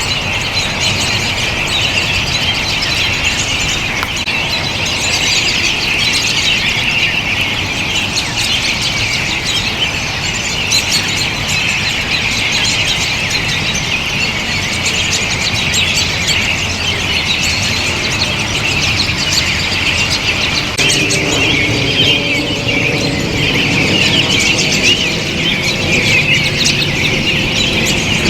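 A large feeding flock of American robins calling all at once: a dense, continuous chatter of many high-pitched calls and squeals.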